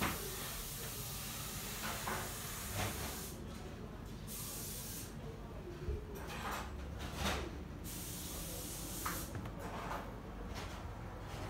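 Steady background hiss that drops out and returns several times, with a few faint short sounds over it.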